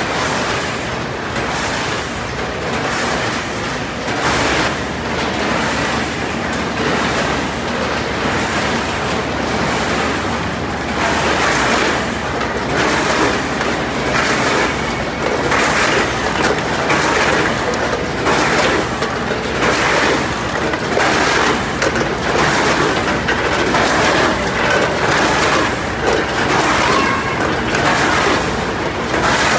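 14-head multihead weigher on a rotary packing line running, its hopper gates opening and closing and fried snack pieces clattering down through the stainless steel buckets, a run of repeated clatters over a steady machine hum.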